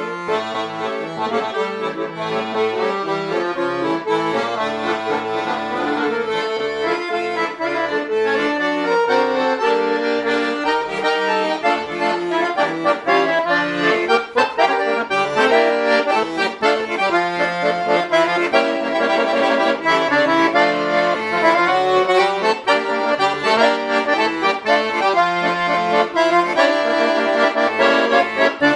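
Solo accordion playing an Italian-style tune: a melody over steady chords and stepping bass notes.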